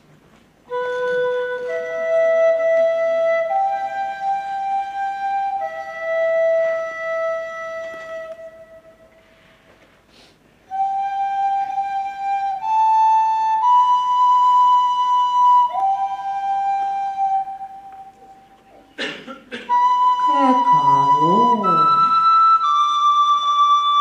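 A flute playing a slow melody of long held notes, in two phrases with a short pause between them. A third phrase starts near the end, with a lower wavering, sliding sound entering under it.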